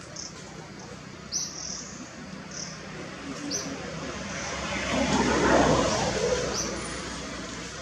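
Outdoor ambience: a short high chirp repeats about once a second, and a rushing noise swells and fades around the middle.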